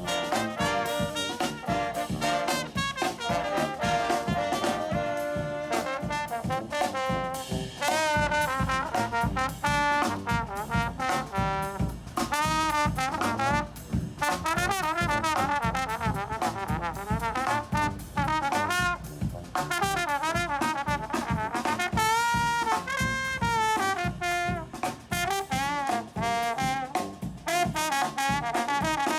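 A brass band playing an upbeat jazz tune, with trumpets and trombones carrying the melody over a steady beat.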